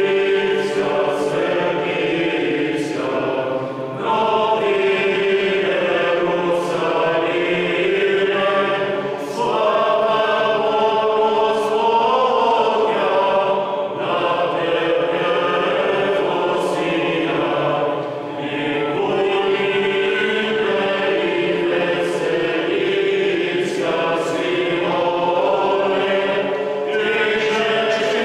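Men's choir singing Orthodox church chant unaccompanied, many voices together in long held phrases with brief breaks between them about 4, 9, 14 and 18 seconds in.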